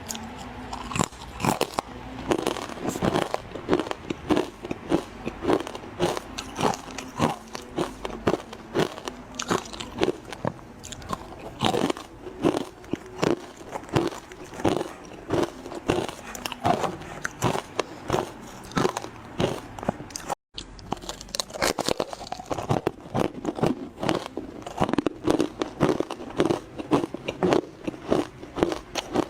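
Close-miked biting and chewing of frozen matcha ice: a steady run of sharp, crisp crunches, several a second, with a momentary break about two-thirds of the way through.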